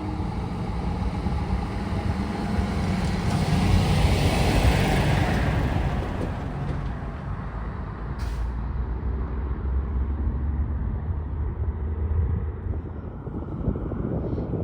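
Semi truck's diesel engine running as it passes, its noise swelling to a peak about four to five seconds in and then easing off, with a brief sharp burst of sound about eight seconds in.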